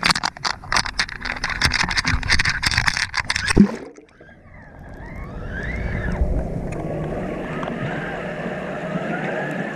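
Choppy sea water splashing and crackling against a camera held at the surface, then the camera goes under about four seconds in and the sound turns to a steady muffled underwater rush with faint wavering whines.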